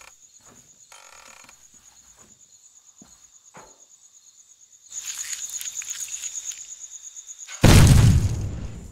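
Crickets chirp steadily. About five seconds in a rattling hiss starts, and near the end a plunger detonator sets off a sudden loud explosion boom that dies away over about a second.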